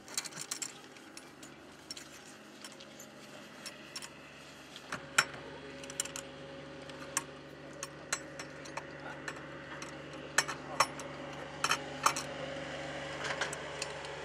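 Steel spanner clinking against brass compression fittings on copper pipe as the joints are tightened: irregular sharp metal clicks and clinks, a few of them louder. A steady low hum comes in about five seconds in.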